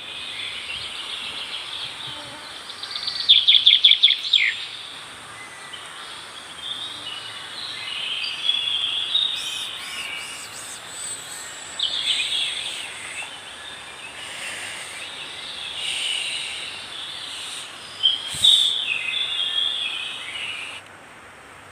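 Forest ambience of several birds chirping and calling over a steady background hiss, with a loud rapid trill about three seconds in and another loud burst of calls near the end. The birdsong cuts off shortly before the end.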